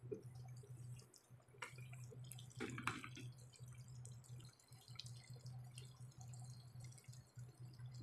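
Breaded shrimp deep-frying in hot oil: faint sizzling with scattered small crackles and pops, a denser, louder patch of crackling about three seconds in, over a steady low hum.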